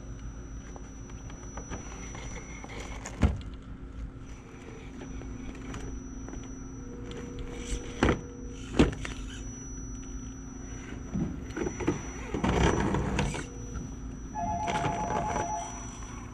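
Axial SCX10 electric RC crawler grinding slowly up loose gravel and rock, with a steady motor-and-gear hum. Sharp knocks of tyres and chassis on rock come about 3, 8 and 9 seconds in, and gravel rattles around 11 to 13 seconds in. A short two-tone sound follows near the end.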